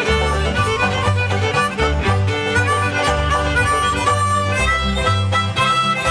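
Background music: an upbeat fiddle tune over a bouncing bass line.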